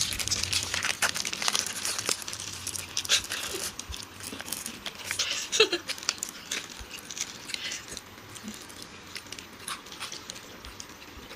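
Plastic candy-bar wrappers crinkling and tearing as they are ripped open by hand and with teeth. The crackling is dense and sharp for the first half, then thins out to scattered fainter rustles.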